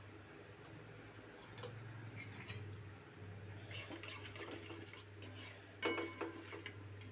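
Spatula scraping and knocking against a metal kadhai while stirring cumin seeds in hot oil, with one louder metallic clank near the end.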